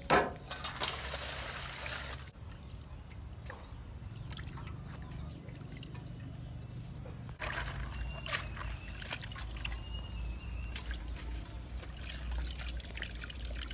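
A knock, then water poured from a plastic dipper into an aluminium basin for about two seconds. Later, from about halfway in, water splashes and drips as fish are rinsed in a woven bamboo basket over the basin and lifted out to drain.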